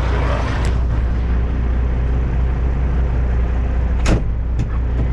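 Kenworth W900 semi truck's diesel engine droning steadily under way, heard from inside the cab, with a few sharp clicks, the loudest about four seconds in.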